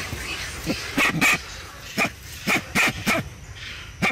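An animal giving about seven short, sharp yelping or barking calls in quick, uneven succession.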